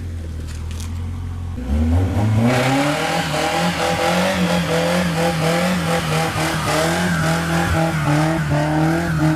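Nissan 180SX/240SX engine idling, then revved hard about two seconds in and held at high revs, the pitch wavering. A strong hiss from a spinning rear tyre runs over it: a one-wheel burnout.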